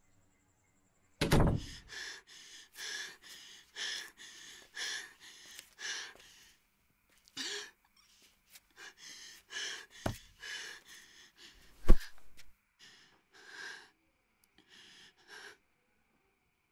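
A woman gasping and breathing heavily in distress, in short ragged breaths about one a second. Two sharp knocks come a little under two seconds apart, the second of them the loudest sound.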